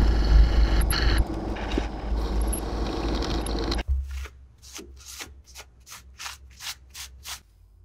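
Drill press running with its bit cutting into a steel plate. About four seconds in the sound stops suddenly and gives way to a cloth rag wiping the oily steel plate and the drill bit in quick strokes, about three or four a second.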